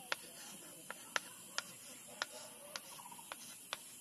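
A chalk stick tapping and writing on a small wooden-framed chalkboard, about eight sharp clicks at irregular intervals as the strokes start.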